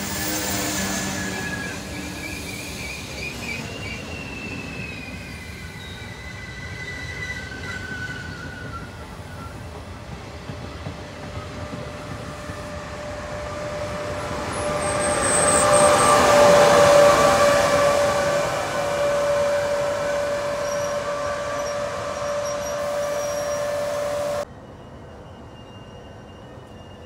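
Trenord regional train with an electric locomotive rolling past a station platform, with thin high wheel-squeal tones in the first seconds. It grows loudest as the locomotive goes by about 16 seconds in, giving a steady electric whine, then the sound cuts off abruptly near the end.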